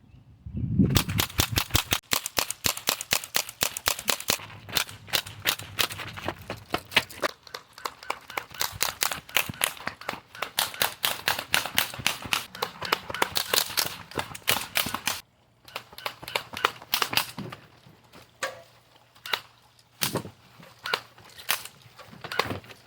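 Airsoft guns firing in a rapid exchange: dense volleys of sharp pops from about a second in, a brief break near the middle, then scattered shots and short bursts.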